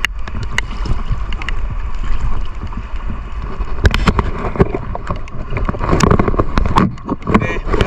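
Wind buffeting the microphone at the sea surface, with choppy waves slapping and splashing close by; the splashing gets louder about six seconds in.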